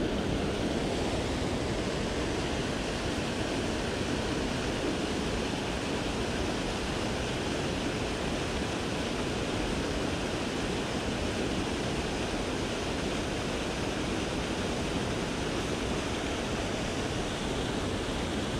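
River water rushing steadily over the riverbed, an even wash of noise with no change.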